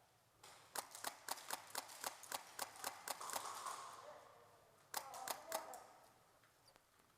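Airsoft guns firing a rapid string of sharp single shots, about four a second, then three more shots about five seconds in.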